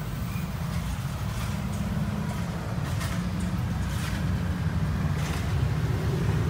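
Steady low rumble in a vehicle's cabin, with a few faint clicks and knocks from hands working the oxygen flowmeter and cylinder valves.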